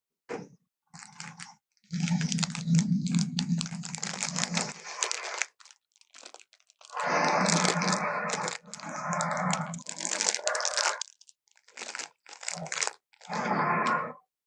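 Made-up Carnotaurus creature sound effects: a series of harsh, rasping growls, the longest about three seconds, with short gaps between them.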